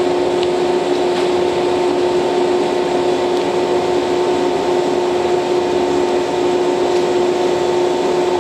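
Standing JR West 113-series electric train's auxiliary equipment running with a steady hum.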